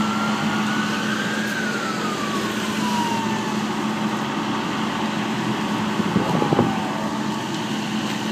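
An emergency-vehicle siren wailing in one slow rise and fall in pitch, over a steady low hum. A short cluster of sharp knocks about six seconds in is the loudest sound.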